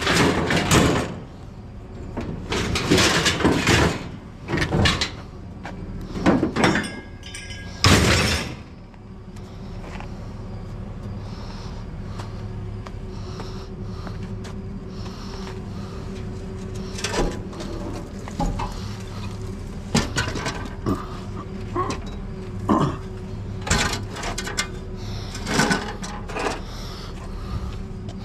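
Scrap being handled by hand: loud scraping and clattering for the first eight seconds or so, then scattered knocks and clanks as a blue metal machine housing is moved and pulled at. A steady hum from the idling pickup truck's engine runs underneath.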